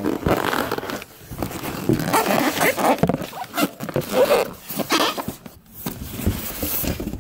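Polystyrene foam packing squeaking and scraping against a cardboard box as it is handled, in irregular rubbing strokes with short squeaks.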